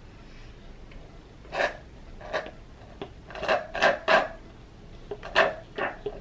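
A thick mint milkshake sucked up through a straw: a series of short, rasping slurps, several in quick succession in the middle.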